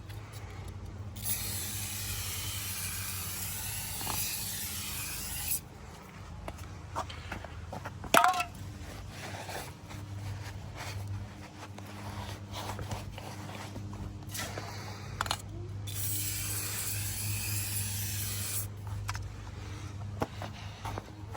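Tire shine sprayed from an aerosol can onto a riding mower's tire in two long hisses, one of about four seconds and one of about three, with knocks and rubbing in between. A steady low hum runs underneath.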